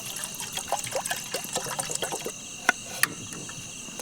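Water being poured or trickled, gurgling in quick little blips for about two seconds, then a couple of sharp clicks, over a steady chorus of crickets.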